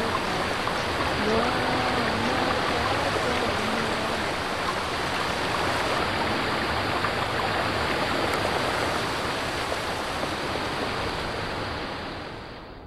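A steady rushing noise, with a wavering pitched tone that rises and falls for about two seconds near the start; the rushing fades out near the end.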